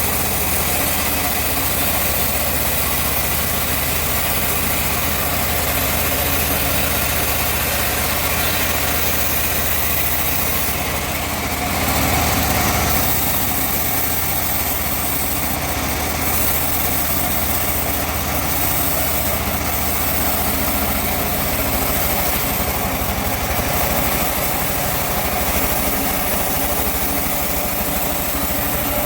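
Sawmill machinery running steadily with a continuous mechanical drone, swelling slightly about twelve seconds in.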